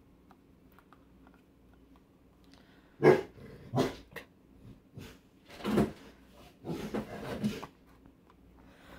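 Dog barking several times in short bursts, starting about three seconds in.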